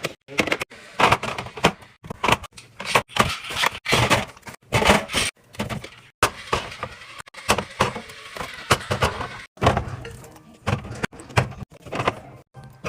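Packaged snacks and drinks being handled and set into place during a restock: a quick, irregular run of clacks, taps and crinkles.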